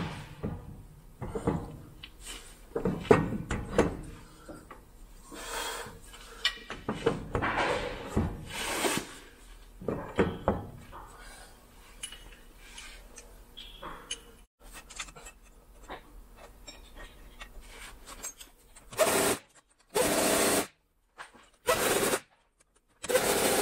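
Metal clanking and scraping as a semi truck's driveline is worked up onto the rear axle's input yoke. Near the end come four short bursts of a cordless impact tool running down the U-joint bolts.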